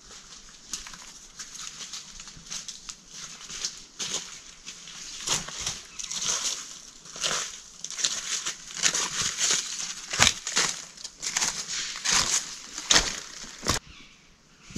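Footsteps crunching through dry leaf litter on a forest floor, growing louder as the walker comes closer, with a few sharper cracks from about two-thirds of the way in.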